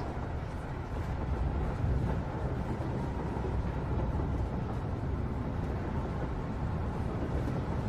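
Steady low rumble and road noise inside a moving passenger vehicle's cabin.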